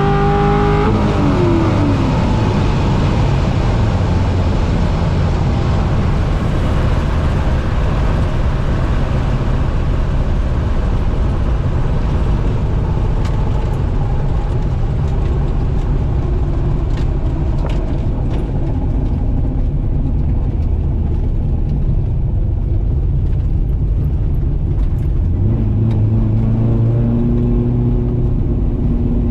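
1968 Pontiac Firebird drag car at the end of a pass: the engine's revs drop sharply about a second in as the throttle comes off, then a loud steady rumble of the car rolling as it slows. Near the end the engine settles to a steady low speed.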